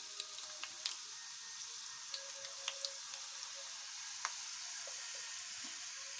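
Potato French fries sizzling in hot oil during their second fry, the one that crisps them: a steady hiss with scattered sharp pops and crackles.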